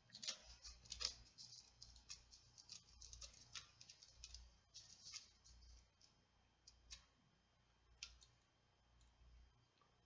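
Faint, irregular small clicks and ticks of metal tweezers and a tiny wire against the plastic base of a Kato No. 6 model railway turnout as the wire is fitted into the switch mechanism. The clicks come thick and fast for the first few seconds, then only now and then.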